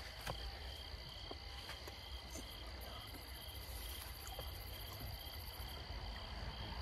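Crickets chirping in an even rhythm of about two chirps a second, with a constant high insect drone behind and a low rumble underneath.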